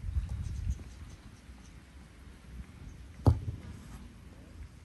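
A football struck once, a single sharp thump about three seconds in.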